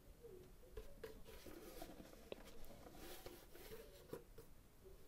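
Near silence: faint rustling and a few light clicks from hands handling and turning a leather shoe.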